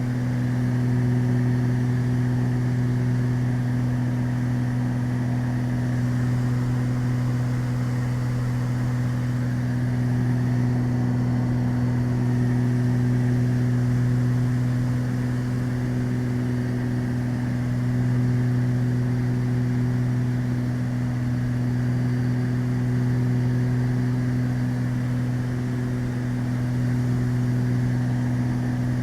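Beechcraft Baron's twin piston engines and propellers droning steadily in flight, heard inside the cockpit, with a slow gentle swell and fall in level.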